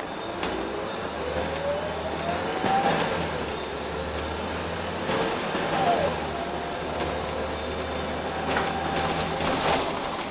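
Wright Eclipse single-deck bus heard from inside the saloon while driving: a low engine drone under a drivetrain whine that rises as the bus accelerates over the first few seconds, drops about six seconds in and climbs again. Scattered rattles and knocks come from the bus body and fittings.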